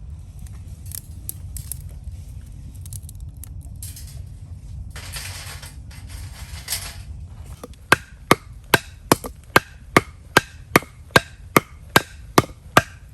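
Rhythmic chopping on wood, very even sharp strikes about two and a half a second, starting about eight seconds in. Wind rumbles on the microphone throughout.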